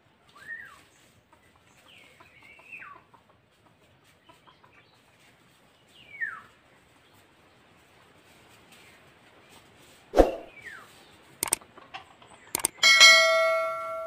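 Red junglefowl clucking: a few short calls, each falling in pitch, in the first half. Near the end come a sharp thump, a couple of clicks and a ringing chime about a second long.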